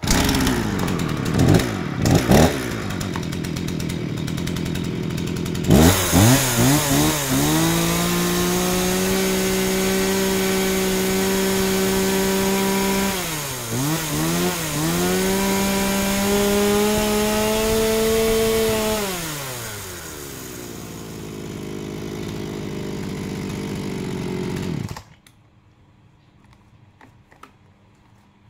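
Ryobi ESK-3500 chainsaw's Mitsubishi-built two-stroke engine running: it idles with a couple of quick throttle blips, then is revved to full speed and held. It drops briefly about halfway, revs high again, and falls back to idle. About 25 seconds in it is switched off and stops abruptly.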